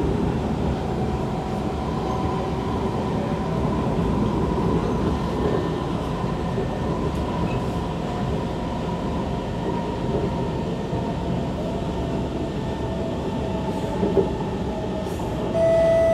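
Inside a Kawasaki C151 metro train running between stations: a steady rumble of wheels on track with faint whining tones. There is one sharp knock about fourteen seconds in, and a clear chime-like tone starts just before the end.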